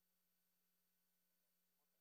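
Near silence: the audio track is essentially empty.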